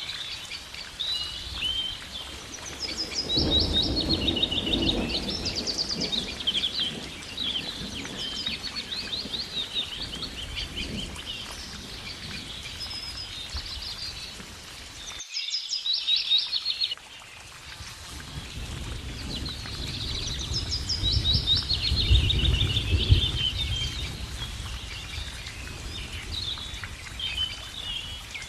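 Songbirds singing, with rapid repeated trills and chirps, over a steady background hiss. A low rumble swells up twice, a few seconds in and again past the middle, and the sound briefly drops out just past the halfway point.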